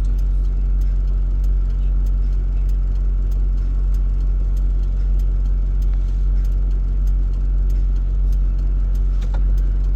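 An engine idling steadily: a low, even hum with a light, fast ticking.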